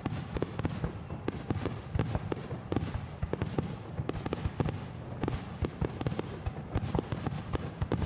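Fireworks bursting in a rapid barrage, many sharp bangs and crackles a second over a low rumble, heard close to the launch site.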